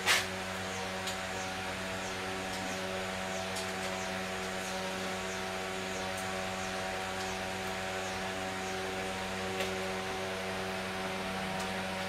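Steady fan whir over an even electrical hum, with a single brief click at the start.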